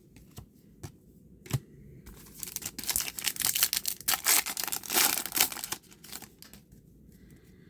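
Trading card pack wrapper being torn open and crinkled: a few light clicks, then about three and a half seconds of dense crackling.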